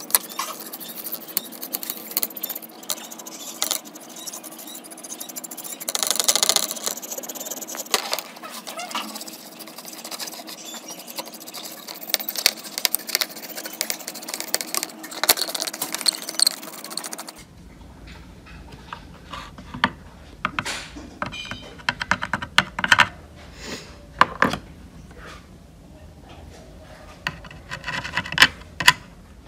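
A bristle paintbrush scrubbing dust off LCD monitor circuit boards: dry, scratchy brushing with many small clicks as the bristles catch on components. About two-thirds of the way through the sound turns quieter, into separate sharp scratches and ticks.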